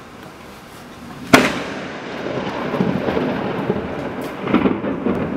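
Close thunder: a sharp crack of a nearby lightning strike about a second in, followed by a rolling rumble that swells again near the end.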